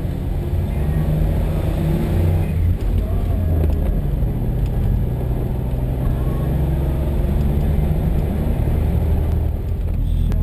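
Smart Fortwo's small three-cylinder engine driving the car along, heard from inside the open-topped cabin over wind and road noise, its note shifting up and down several times as the engine speed changes.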